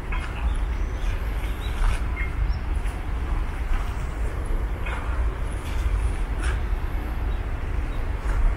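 Steady low outdoor rumble, with a few short, faint crackles scattered through it.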